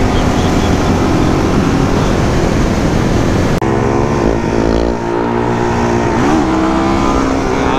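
Suzuki DR-Z400's single-cylinder four-stroke engine under way, mixed with wind rush for the first half. After a sudden break about three and a half seconds in, the engine note is clearer and rises and falls with the throttle, dipping briefly and climbing again about six seconds in, as on a gear change.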